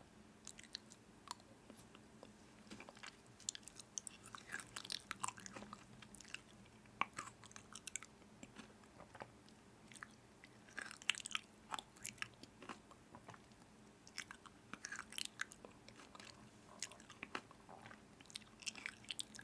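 Crunchy food being bitten and chewed: faint, irregular crisp crunches and clicks.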